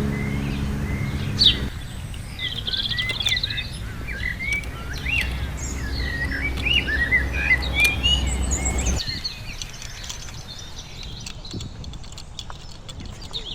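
Small birds chirping and twittering, many short rising and falling calls, over a low steady rumble that cuts off suddenly about nine seconds in.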